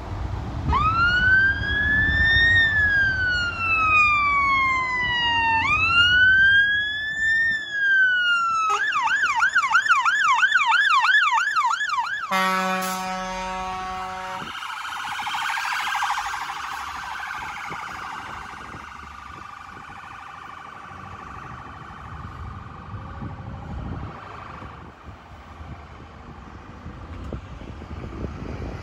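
Fire service emergency vehicle siren approaching and passing: a slow rising and falling wail for about eight seconds, then a fast yelp for about three seconds. A steady horn blast of about two seconds follows. The siren then carries on fainter and fades into traffic noise.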